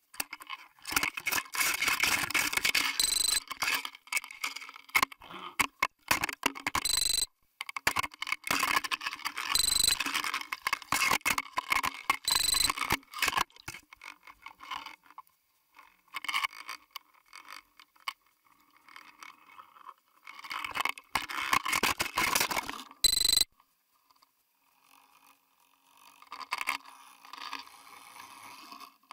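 Underwater camera housing scraping and crackling in irregular bursts as it is jostled in the water, with a few short high tones cutting in.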